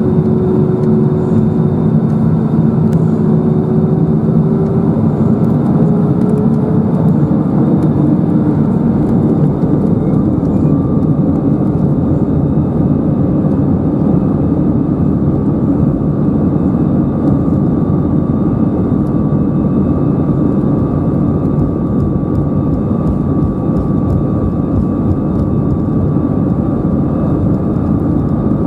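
Cabin noise over the wing of an Airbus A320-214 as its CFM56-5B engines spool up for takeoff. A droning tone rises a few seconds in, and a higher fan whine sets in about a third of the way through. After that a loud, steady rush goes on as the aircraft accelerates down the runway.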